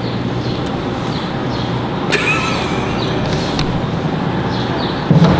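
Steady rumble of road traffic, with a short squeak about two seconds in and a low thump near the end.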